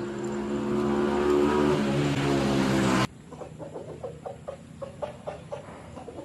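A motor vehicle's engine running loudly, its hiss growing, then cut off abruptly about three seconds in. After that comes a chicken clucking in short repeated notes.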